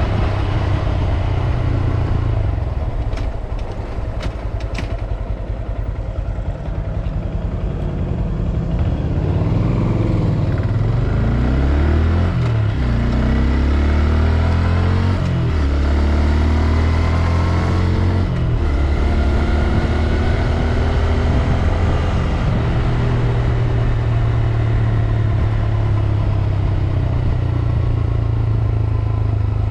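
2022 Honda Grom's single-cylinder engine running, its revs rising and falling several times through the middle and holding steady at the start and end.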